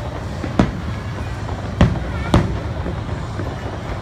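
Aerial fireworks shells bursting overhead: three sharp booms, one about half a second in and two close together near the middle, over a continuous low rumble of the display.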